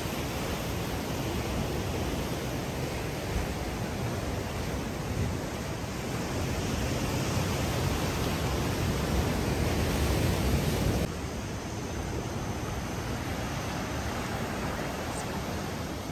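Ocean surf washing and breaking on lava rocks, a steady rushing noise that swells louder through the middle and drops abruptly to a lower level about eleven seconds in.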